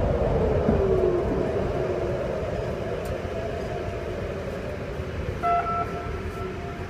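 Civil defence siren winding down, its pitch falling until it fades out about a second in, leaving a steady rumbling noise. A short tone sounds about five and a half seconds in.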